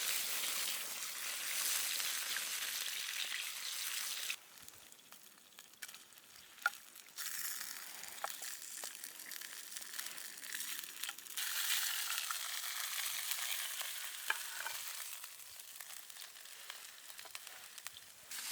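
Food sizzling and frying in a hot pan, a steady hissing spatter broken by abrupt cuts, with a few faint clicks and ticks in the quieter stretches.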